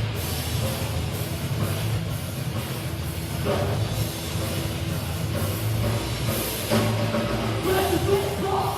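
Thrash metal band playing live: distorted guitars and bass over a driving drum kit, loud and dense.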